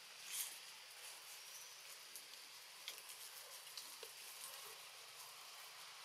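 Faint outdoor background: a steady high hiss with a few soft clicks and ticks, the loudest about half a second in. No monkey call is heard.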